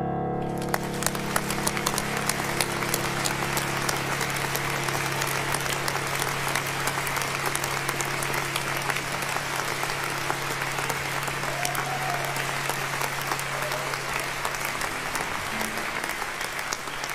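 Applause: hands clapping densely and steadily, starting just under a second in as the last sustained keyboard chord dies away, with a steady low hum beneath.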